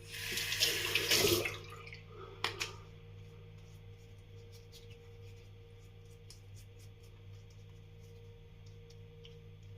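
Tap water running into a sink for about a second and a half, then a single short knock about two and a half seconds in; after that only a low steady hum and faint small clicks.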